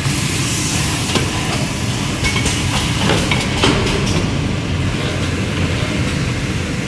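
Wine-box forming machine running a single trial cycle: a steady mechanical rumble with several sharp clunks as its forming parts move, one about a second in and a few around three seconds in.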